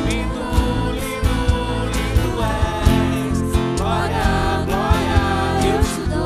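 Live worship band playing a praise song: voices singing over strummed acoustic guitars and electric bass, with percussion striking a steady beat.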